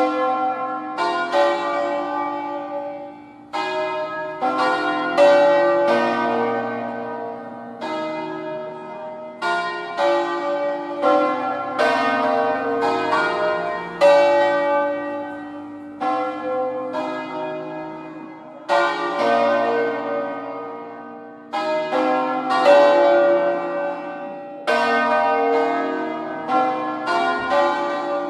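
Full swinging peal of five hand-rung bronze church bells tuned in B-flat, cast in 1859, swung full circle on wheels. Strikes come unevenly about once a second, overlapping, each ringing on and fading under the next.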